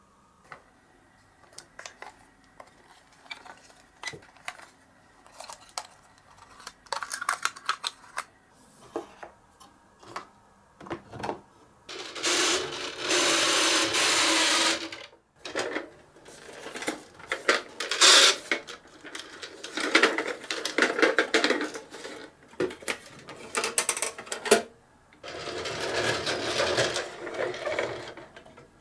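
Glass marbles clicking and rolling along wooden marble-run tracks and clattering into toy trucks. Scattered single clicks come first, then stretches of continuous rolling rattle.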